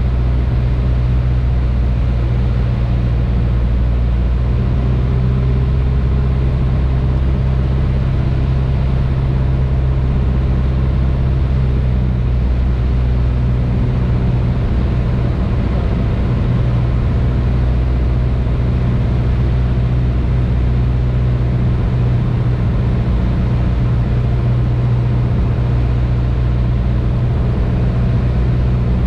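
Piper Cherokee PA-28-140's four-cylinder Lycoming engine and propeller droning steadily, heard inside the cabin as a constant low hum.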